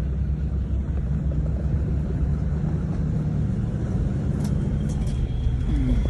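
Land Rover Discovery 2 Td5's five-cylinder turbodiesel engine running steadily at low speed as it drives a rough off-road track, heard from the cabin as a deep rumble. A few light knocks come near the end.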